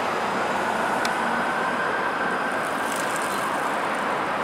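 Flexity Outlook streetcar running along its track, a steady rolling rumble and hiss mixed with street noise. A few faint high clicks come about three seconds in.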